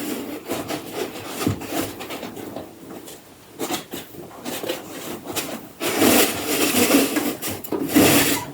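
Block of packing foam being worked out from inside the 3D printer, rubbing and scraping against it, louder over the last couple of seconds.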